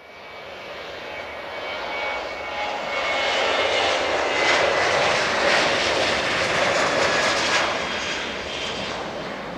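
Jet airliner's engines as it passes at speed along the runway: a dense rush of engine noise with a high whine on top. It swells over the first few seconds, is loudest in the middle and eases off near the end.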